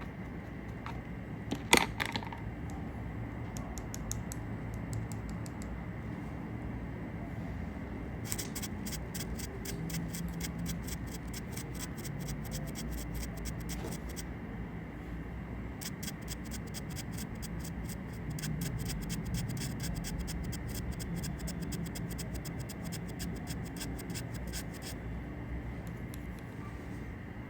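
Close-miked ASMR scratching: one sharp click about two seconds in, then two long runs of rapid, fine scratches.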